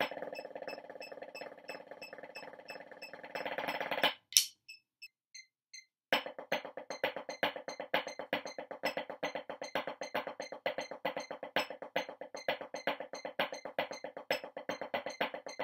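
Wooden drumsticks on a drum practice pad: a fast, dense run of strokes that ends on a loud stroke about four seconds in, a short pause with only a few faint even clicks, then a steady stream of evenly spaced flams from about six seconds in.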